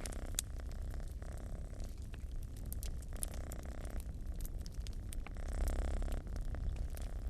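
Domestic cat purring steadily, the purr swelling about every two seconds with each breath. A wood fire crackles with scattered sharp pops throughout.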